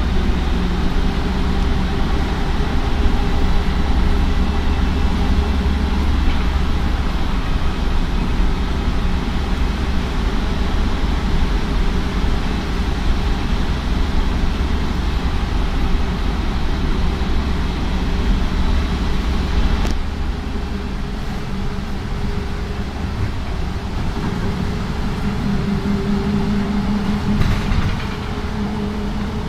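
Cabin noise inside a moving Karosa B741 articulated diesel bus: the engine's steady drone with road rumble, easing off a little about two-thirds of the way through. A brief knock comes near the end.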